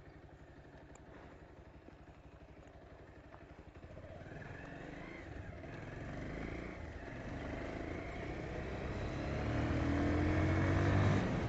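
Motorcycle engine, heard from the rider's seat: it runs low and steady at first, then about four seconds in it pulls away, its note rising and growing steadily louder as the bike speeds up.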